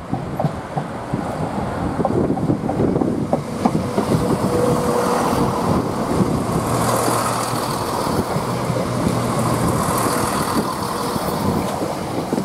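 Greater Anglia Class 170 Turbostar diesel multiple unit passing close by: underfloor diesel engines running with a steady low hum in the middle of the pass, and wheel-on-rail rumble and hiss building in the second half as the carriages go by. Wind buffets the microphone throughout.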